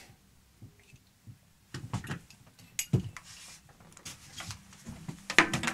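Near silence at first, then from about two seconds in a scatter of light knocks, clicks and handling noises, one near the end leaving a brief low ring.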